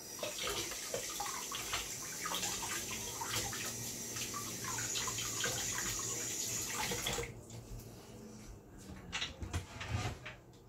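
Water running and splashing, cutting off suddenly about seven seconds in, followed by a few soft knocks.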